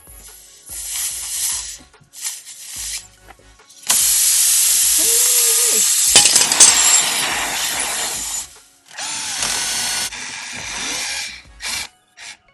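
Cordless impact driver running in short bursts and then in a longer run of about four seconds, spinning a Slime reamer bit into a tire's puncture hole to rout it out for a plug. Air hisses from the punctured tire.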